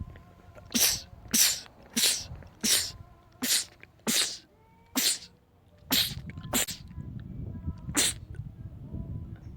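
A man sneezing about ten times in quick succession, the sneezes short and sharp and mostly under a second apart, with a slightly longer pause partway through.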